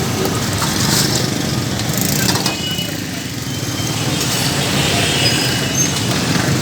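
A steady low mechanical drone, like a small engine or motor running, with a few short clicks and clinks over it.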